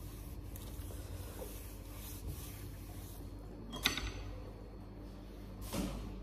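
Household handling noises over a steady low hum: one sharp click about four seconds in and a brief knock near the end.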